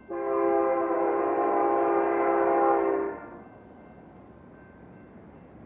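A BNSF freight locomotive's air horn sounding one long blast of several notes at once, lasting about three seconds and then stopping, leaving the faint rumble of the approaching train.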